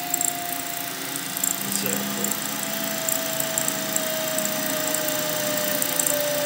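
Bridgeport BRJ milling machine, converted to stepper-motor CNC, cutting a circle in a metal plate: the spindle runs and the end mill cuts steadily, with a thin whine that slowly drops in pitch.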